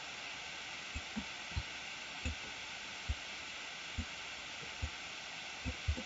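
About ten soft, dull clicks from a computer mouse and desk at irregular intervals, over a steady microphone hiss.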